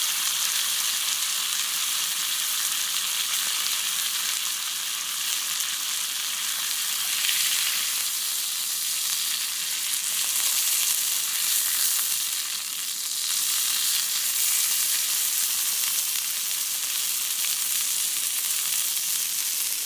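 Meat frying in a lot of rendered fat, a steady crackling sizzle that swells a little about halfway through.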